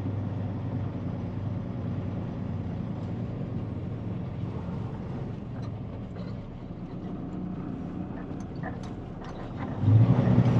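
Heavily loaded dump truck's diesel engine running with a steady low drone that eases off through the middle, with a few light rattles. Near the end it suddenly gets much louder as the engine comes back under power.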